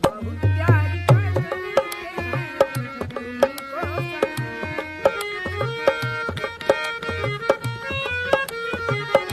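Instrumental passage of a Hindi film song: tabla playing a steady rhythm, its deep bass strokes bending in pitch, under sustained melodic instruments.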